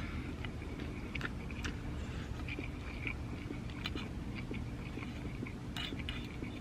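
A person chewing a mouthful of spaghetti and pepperoni, with scattered faint light clicks, as of a spork against the pan.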